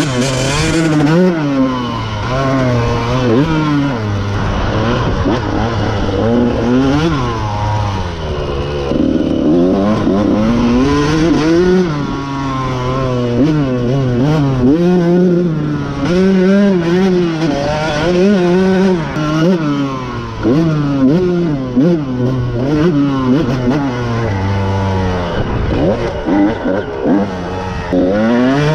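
1999 Honda CR125's two-stroke single-cylinder engine under hard riding, revving up and dropping back again and again as the rider works the throttle and gears, heard from on board the bike.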